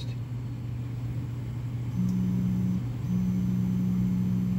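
Stepper-motor axis drives of an Emco PC Turn 55 CNC lathe whining at one steady pitch during two jog moves: a short one about two seconds in and a longer one just after. A steady low hum runs underneath.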